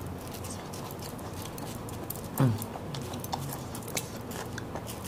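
Small knives peeling unripe green mangoes: scattered light clicks and scrapes of the blades on the firm skin. A short falling grunt comes about two and a half seconds in.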